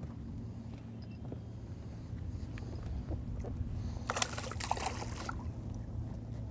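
Water splashing against a fishing boat for about a second, beginning about four seconds in, over a steady low hum.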